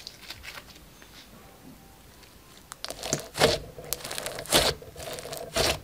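Hand squishing and pressing a lump of bead-filled slime: faint crackling at first, then loud wet crackles and squelches from about three seconds in.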